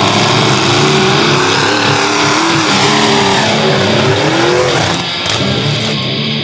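Mud-racing truck's engine revving hard, its pitch wavering up and down. About five seconds in, the sound changes and drops a little.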